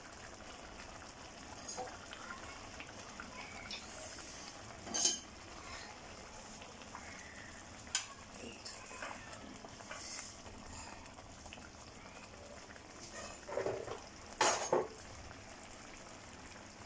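Egg curry simmering and sizzling in a kadai, with a wooden spatula stirring and knocking against the pan a few times, the loudest knocks near the end.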